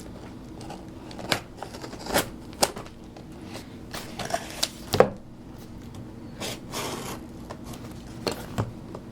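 A shipping package being opened by hand: scattered clicks and scrapes, with a short stretch of tearing or rustling about six and a half seconds in.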